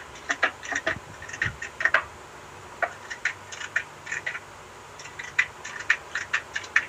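A glass being washed by hand at a sink: wet hands rubbing it, giving short, irregular squeaks and clinks several times a second.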